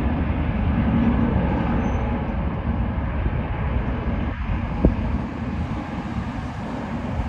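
Jet airliner's engines at takeoff power, a loud low roar that slowly fades as the plane climbs away.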